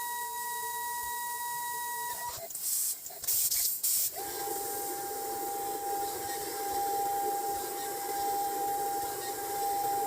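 CNC milling machine at work: a steady high spindle whine cuts off about two seconds in, giving way to a couple of seconds of sharp hissing bursts. A lower steady whine with a rough rushing noise beneath it then takes over.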